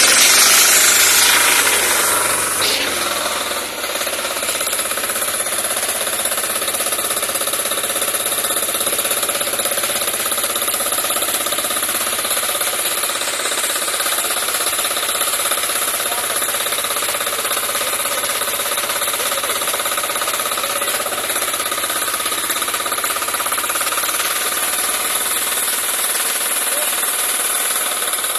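Yanmar engine driving a 3 kVA generator, running with a steady knocking beat. It is louder for the first few seconds, dips briefly, then runs evenly.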